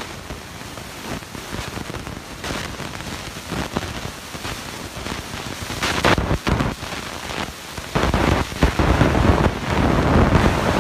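Chainsaw cutting into a block of ice, throwing a spray of ice chips: a rough, hissing cutting noise that grows louder about six seconds in and is heaviest near the end.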